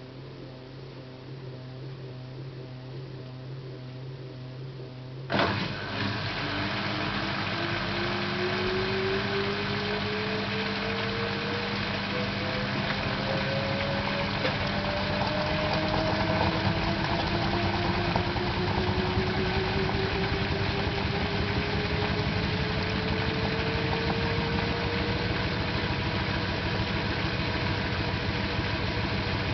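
LG 12B8ND front-loading washing machine: a low steady hum, then about five seconds in a sudden thump as the drum starts to spin up, followed by louder running with a motor whine rising slowly in pitch as the spin speed climbs. This is the spin in which the owner reports an unwanted clicking from the lower right side, present with any load but not with an empty drum.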